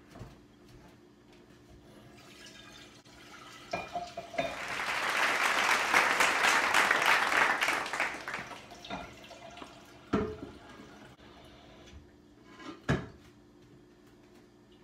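Kitchen tap running into a cooking pot for about four seconds as the pot is filled with water, with a few clanks of the pot before and after.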